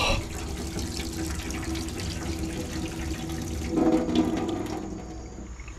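Water running steadily from a kitchen tap into a stainless-steel sink. About four seconds in, a hand takes the tap handle, there is a brief louder splashing, and the flow then fades as the tap is closed.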